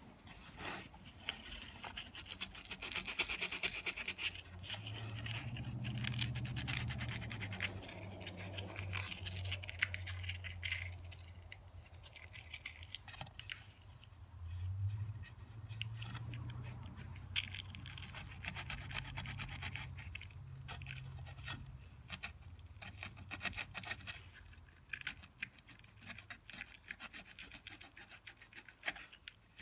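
Hand-scraping and rubbing on a carved cherub relief: a steady run of small scratchy strokes as the finishing details are worked by hand. A low hum comes and goes in the background through the middle.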